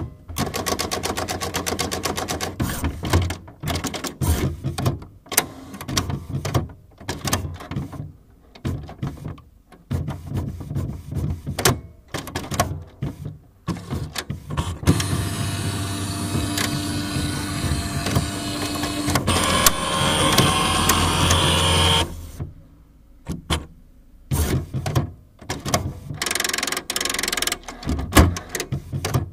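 Inkjet printer on the verge of giving up, its mechanism running in fits and starts: short bursts of whirring and clicking broken by pauses. About halfway through comes a longer unbroken whir lasting several seconds, whose pitch steps up near its end.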